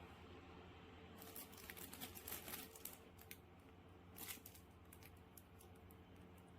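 Faint crinkling and rustling, in scattered bursts, over a steady low electrical hum.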